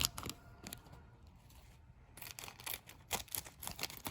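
Small metal lock wafers clicking and rustling as they are handled and sorted by hand. There are a few light clicks at first, a short quiet spell, then a quicker run of clicks and rustling in the second half.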